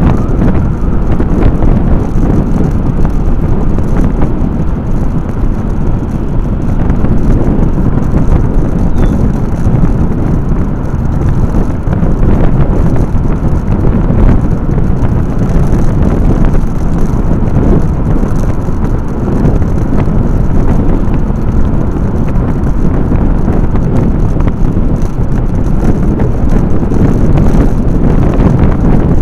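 Wind buffeting the microphone of a camera riding along a road, a loud, steady low rumble with no distinct engine note.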